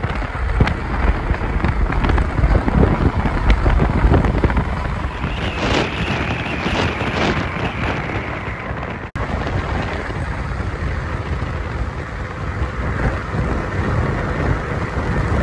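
Strong wind buffeting the microphone: a loud, steady rushing rumble with no tune or voice, broken by a brief dropout about nine seconds in. After the dropout it carries on as the wind and road rush of a car at highway speed.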